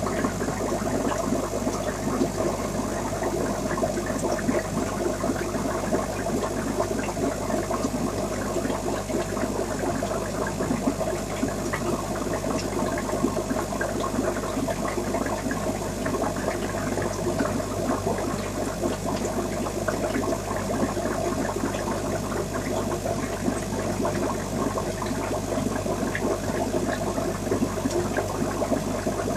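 Steady bubbling and trickling water from the aquarium's water circulation, over a low steady hum.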